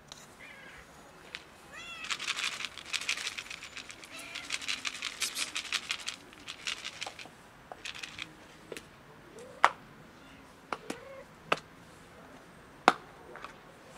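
Stray cats meowing around a clip-lid plastic food container. About two seconds in comes a dense, rapid crackling rattle lasting a few seconds as the container is handled. Several sharp plastic clicks follow near the end.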